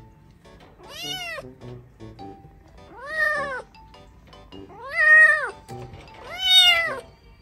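A kitten meowing four times, roughly every one and a half to two seconds; each call is high and rises then falls in pitch, the later ones louder.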